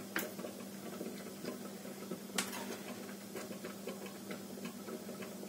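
Two sharp clicks, about a quarter second in and about two and a half seconds in, over a steady low hum and faint scattered ticking.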